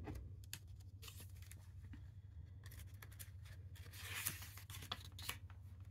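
Faint rustle and soft clicks of a paper picture-book page being handled and turned, with the rustle strongest about four seconds in.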